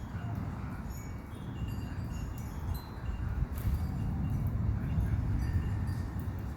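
Rain falling with a low rumble of thunder that builds through the middle and eases near the end, and light high tinkling sounds scattered over it.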